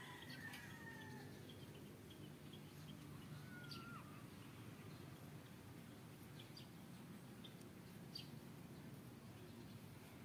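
Quiet rural ambience. The drawn-out, falling end of a rooster's crow comes at the start. About three and a half seconds in there is a short gliding call, with scattered faint bird chirps over a low steady background noise.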